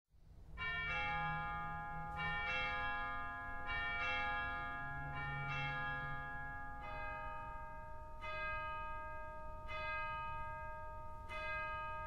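Bells ringing, starting suddenly from silence, with a new struck note about every one and a half seconds and each note ringing on into the next.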